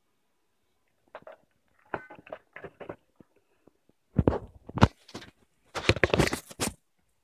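Handling noise: a few light clicks and knocks, then louder bumps as a circular saw blade and an angle grinder are picked up by hand. Near the end comes a dense stretch of scraping rub from a hand brushing over the recording phone's microphone.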